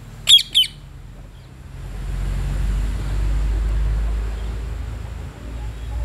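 Two shrill squawks from a rose-ringed parakeet, one right after the other, just after the start. A low rumble with a faint hiss then rises and holds for a few seconds before fading.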